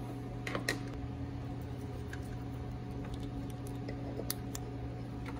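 Hands handling a plastic headlight bulb connector and housing, with a few light clicks over a steady low room hum.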